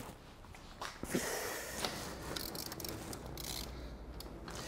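Small metallic clicks as a connecting-rod cap is seated on its rod and its ARP bolts are snugged up by hand with a hand tool, with a quick run of rapid ticks about halfway through.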